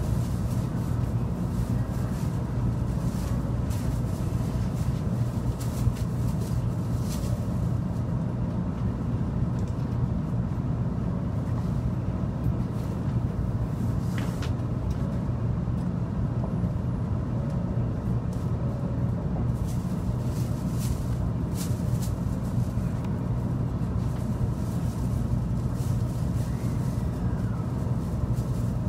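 Steady low hum inside a Shinkansen car standing at a station platform, with a few faint ticks.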